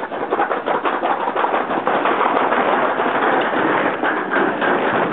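Toboggan sled running fast down a stainless-steel chute: a loud, continuous rattle of rapid clicks over a rushing rumble from the sled on the metal track.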